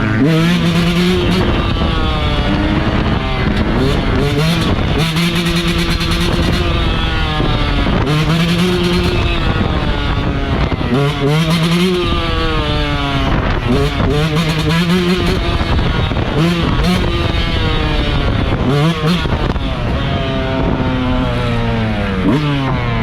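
Yamaha YZ125 two-stroke single-cylinder dirt bike being ridden hard, its engine note repeatedly climbing under throttle and dropping sharply at each shift or roll-off, about a dozen times.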